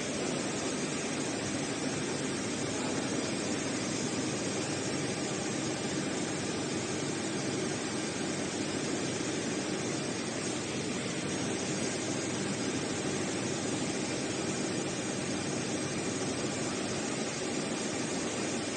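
Roll-to-roll heating-wire sewing machine running on test, a steady whirring hiss with no breaks.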